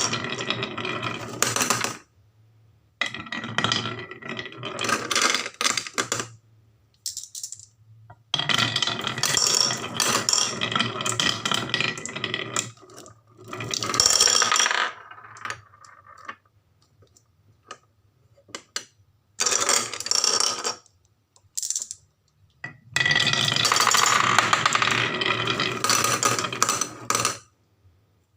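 Marbles rolling and clattering down a wooden HABA marble run, a dense rapid rattle. It comes in several runs of a few seconds each, with short pauses between.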